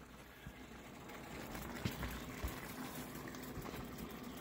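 Faint, steady bubbling of hot carne guisada gravy, with a low hum and a few light knocks.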